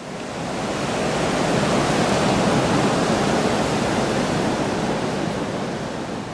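Ocean surf breaking on a beach: a steady rush of waves that swells up over the first second or so.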